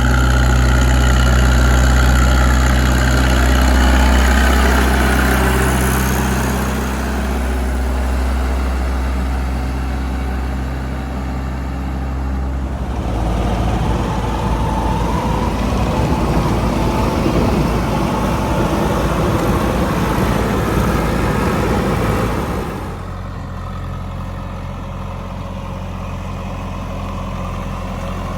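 JCB 3DX backhoe loader's diesel engine running steadily. About halfway through, the sound switches abruptly to a rougher, noisier stretch for around ten seconds, then the steady running returns.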